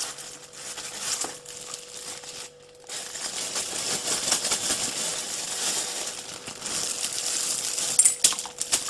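Chickpeas clattering into a stainless steel pot as they are tipped in from a plastic bag, with the sharpest hits near the end.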